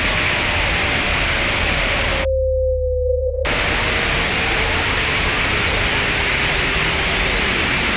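Synthesized electronic sound: a steady hiss threaded with many slowly gliding tones and a constant high whine. Just over two seconds in, the hiss cuts out for about a second, leaving a single steady mid-pitched tone over a low hum, and then the hiss and glides return.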